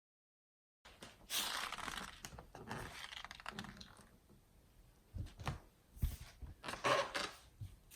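Hand-handling noise from making slime with balloons: about three seconds of rustling and crinkling that starts abruptly about a second in, then a run of light taps and clicks.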